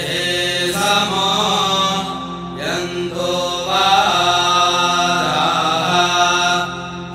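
Vedic mantra chanted in Sanskrit: one voice holding long, slowly moving syllables over a steady low drone.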